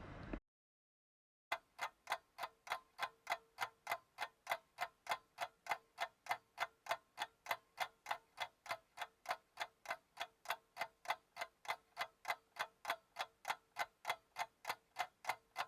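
Steady, evenly spaced ticking, about three to four ticks a second, with a faint steady tone underneath. It starts about a second and a half in, after a brief dead silence.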